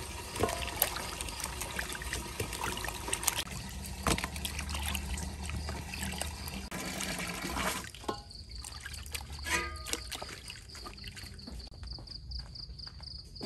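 Water splashing and trickling as hands wash vegetables and pineapple in a clay basin of water. About eight seconds in this gives way to crickets chirping steadily, with a few light clicks.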